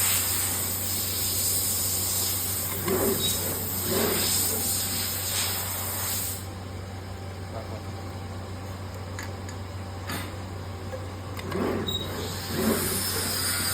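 Screen printing machine for perfume bottles running: a steady hum under a hiss. The hiss stops about six seconds in and comes back near the end, with a few short louder sounds.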